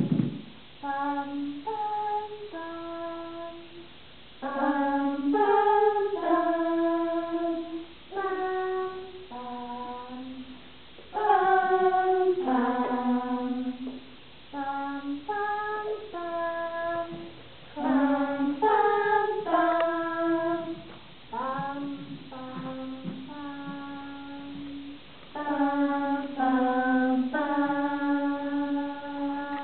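Women's voices singing a simple children's song, a melody of short held-note phrases with brief pauses between them.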